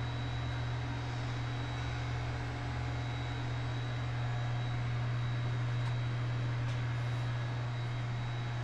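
Steady low hum of running equipment, with a faint high-pitched whine and an even hiss over it, unchanging throughout.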